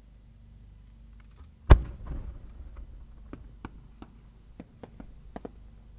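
A 10-inch (shakudama) firework shell fired from its mortar: one loud deep bang with a rumble, then a string of small sharp pops as the rising shell's attached effects go off on its way up.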